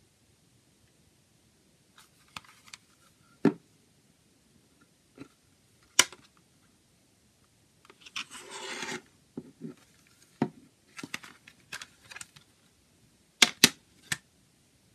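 Plastic CD jewel case being handled: scattered sharp clicks and taps, a scrape lasting about a second as it slides on the table about eight seconds in, and a quick run of loud clicks near the end as the hinged case is snapped open.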